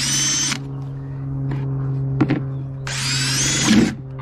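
Cordless drill with a spade bit boring into a plastic bucket, running in two short bursts: about half a second at the start, then about a second near the end.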